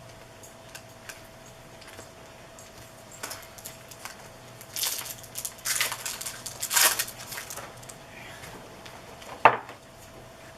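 Trading card packs and cards being handled: a few short crinkling, rustling bursts of pack wrappers and cards in the middle and one sharp click near the end, over a faint steady hum.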